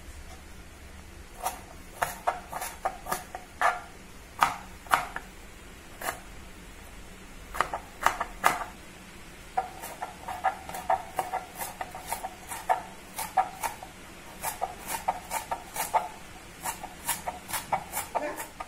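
Kitchen knife chopping on a plastic cutting board: irregular sharp knocks of the blade hitting the board. In the second half they come in a quicker, denser run of small taps as coriander leaves are chopped fine.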